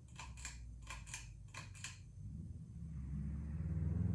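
Hampton Bay Chatham hugger ceiling fan running on low speed, making light clicking in regular pairs, about one pair every two-thirds of a second, as the blades turn. A low hum then swells over the last second or so; the owner notes that the fan hums and rattles.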